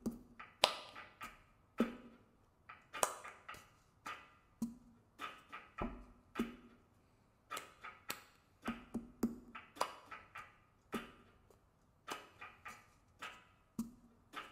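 Cup-game rhythm played without singing: hand claps alternating with taps and knocks of a cup on a pillow-covered table, in a steady repeating pattern of sharp percussive hits.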